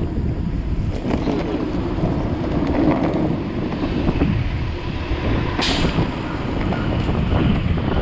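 Electric skateboard wheels rumbling steadily over city pavement, with wind on the microphone and street traffic around. A short hiss sounds a little past halfway.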